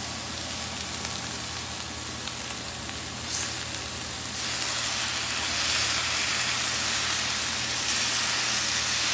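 Raw bacon strips and sausage sizzling on a Blackstone flat-top griddle; the sizzle grows louder about four seconds in as more strips of bacon are laid down on the hot steel.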